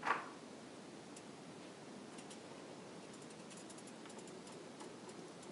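Egg omelet sizzling faintly in a non-stick frying pan, a steady low hiss with scattered light crackling ticks. A short, louder sound comes at the very start.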